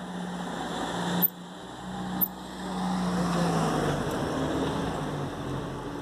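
Road traffic: a car going by on the street, a steady engine hum and road noise that swell and then ease off, broken by a couple of short gaps.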